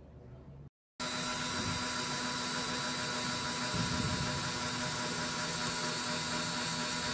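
Dremel rotary tool running steadily with a grinding stone, sanding the enamel off the thin copper magnet wire of a TV deflection yoke coil. It starts suddenly about a second in.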